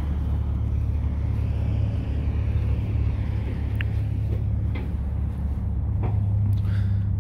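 Steady low rumble of road traffic on the nearby highway, with the hiss of a passing vehicle swelling and fading about two to three seconds in. A few faint crunches of footsteps in the brush follow.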